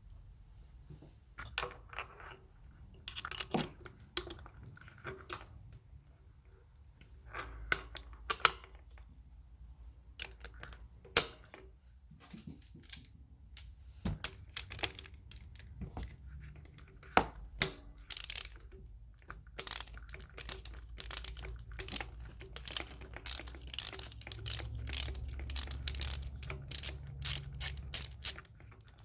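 Irregular clicks, knocks and rattles of hand tools and parts being handled during a spark plug change, turning into a quicker run of sharp clicks, about two a second, in the second half.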